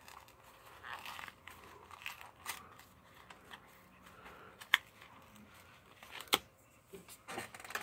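Clear plastic packaging crinkling and crackling as it is pried and torn open by hand to free a marker, with a few sharp snaps in the second half.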